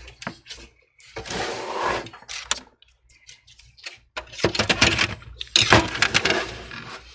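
Handling of a desktop PC case: scraping and sliding noises, then a busy run of sharp clicks and rattles of plastic and metal parts, from about four seconds in.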